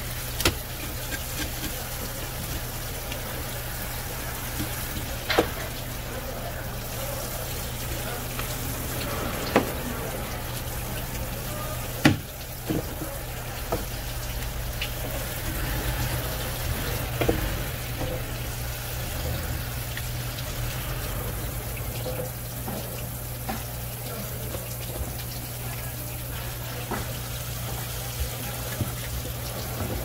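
Tap water running steadily over a steady low hum, with several sharp knocks on the work surface spread through, during fish cleaning.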